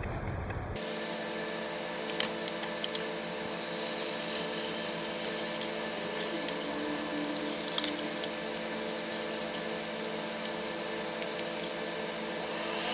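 A steady mechanical hum made of several even tones, starting abruptly about a second in, with occasional light clicks and taps over it.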